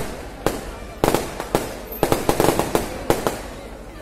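Firecrackers going off in irregular clusters of sharp cracks, with a dense run of rapid cracks about two seconds in.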